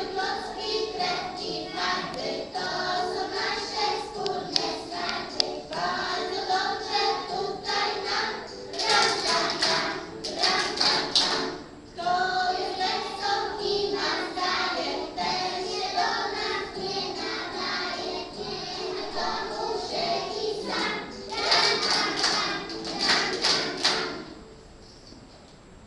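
A group of young preschool children singing a song together, loudest in two stretches, ending about 24 seconds in.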